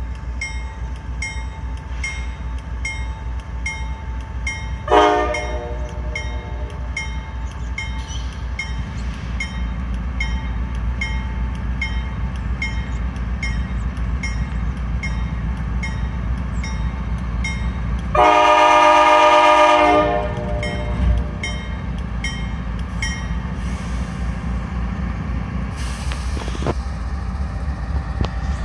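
Norfolk Southern freight train's diesel locomotives rumbling steadily past a grade crossing, with the crossing bell dinging about twice a second. The locomotive horn gives a short blast about five seconds in, then a long blast of about two seconds, the loudest sound, about eighteen seconds in.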